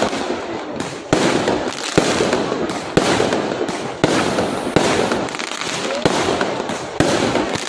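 Fireworks going off: sharp bangs about once a second over continuous dense crackling.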